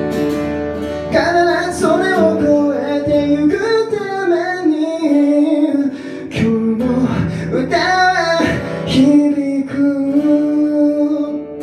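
A voice singing a melody over acoustic guitar, ending on a long held note near the end.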